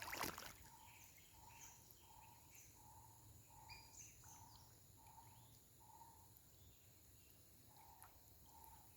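Quiet riverside ambience: a bird repeating a short mid-pitched note about one and a half times a second, pausing briefly near the end, over faint higher chirps. A short burst of noise right at the start.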